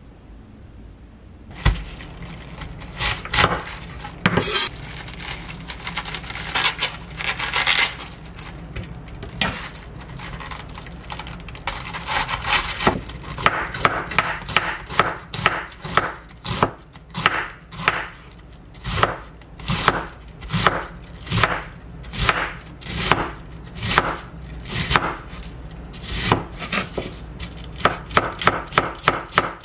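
Kitchen knife shredding a head of cabbage on a wooden cutting board: repeated crisp strokes through the leaves and onto the wood, about one to two a second, quickening near the end.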